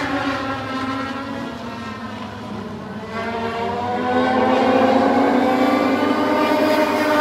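A pack of Legends race cars running, their Yamaha 1250 cc motorcycle engines. The engines dip in loudness about two to three seconds in, then rise in pitch and grow louder as the pack accelerates toward the front stretch.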